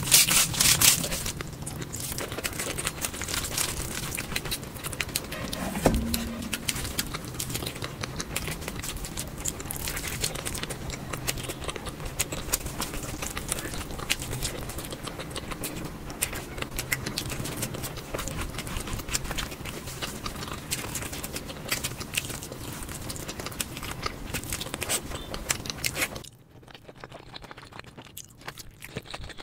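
Close-miked eating sounds of a mukbang: chewing and mouth clicks over a dense run of small crackling clicks, with one low thump about six seconds in. The sound turns quieter and sparser near the end.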